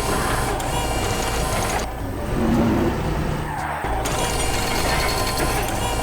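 Cartoon construction-machinery sound effect: a mechanical rattling and whirring over a steady low engine rumble. The rattling drops away for about two seconds in the middle and then comes back.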